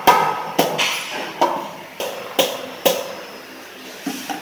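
A series of sharp knocks, about six in the first three seconds at roughly half-second intervals, then a softer one near the end, each ringing briefly: metal parts of a folding electric scooter being knocked during assembly.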